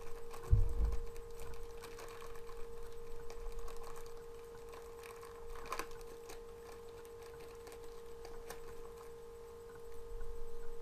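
Hands rustling and clicking small plastic toy packaging while opening a blind-box army-man figure and its dog tag, with a low thump about half a second in. A steady hum runs underneath.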